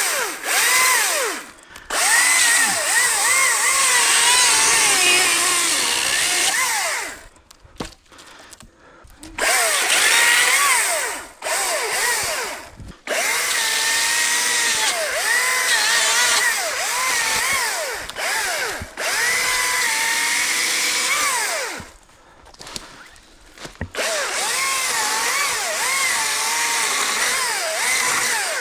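Battery-powered top-handle chainsaw (ECHO DCS-2500T) cutting wood in a series of runs of a few seconds each, stopping briefly between them, its motor whine dipping and rising in pitch.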